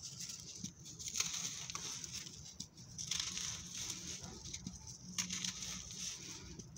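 Crumbly molded blocks of dry sand-cement mix crushed by hand, crunching, with loose sand pouring and trickling down. The crunching comes in several short stretches with brief pauses, with a few sharp little cracks.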